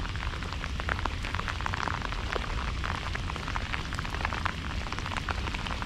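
Rain falling, an even patter of drops with many irregular sharp ticks.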